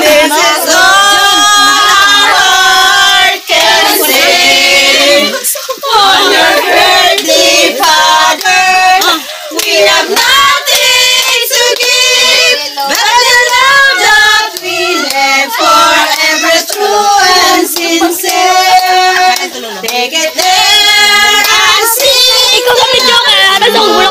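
Women's and children's voices singing together, a birthday song in held, gliding notes, with a few sharp knocks among them.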